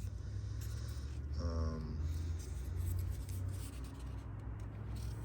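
Rubbing and scraping handling noise close to the microphone, with a brief murmur of voice about a second and a half in and a steady low hum underneath.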